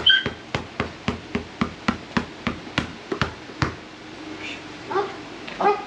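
A basketball being dribbled on a hard paved deck, a quick regular smack of about four bounces a second, stopping about three and a half seconds in when the ball is caught.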